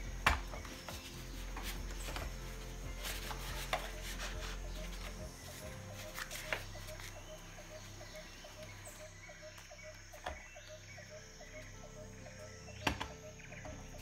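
Soft background music with a light ticking beat, over which a few sharp, irregular knocks and clatters sound as a super-telephoto lens in a neoprene camouflage cover is handled on a wooden table.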